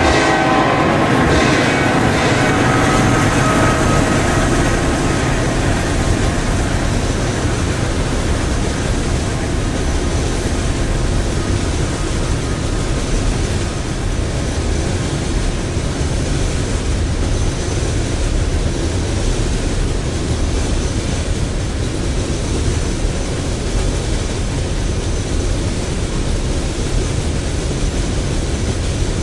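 A CSX freight train of refrigerated boxcars rolling past, a steady rumble of wheels on rail. A few pitched tones fade out in the first few seconds.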